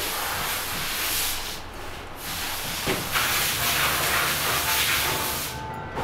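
Spray wand on a hose hissing in bursts as it sprays wooden boards: one burst, a short break, then a longer, stronger spray that cuts off just before the end. A low machine hum joins about halfway through.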